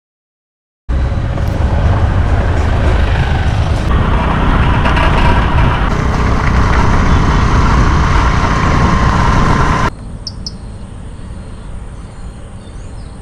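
Strong wind buffeting the microphone: a loud, rumbling rush that starts suddenly about a second in, then drops abruptly to a much quieter wind rush near the end.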